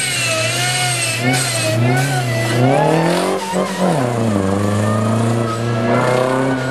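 Rally car engine revving hard while driving fast. Its pitch rises and falls, climbs steeply about three seconds in, then drops sharply.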